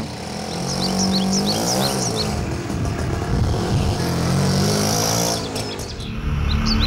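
Small birds giving quick, high chirps in short runs, twice, over a steady low hum.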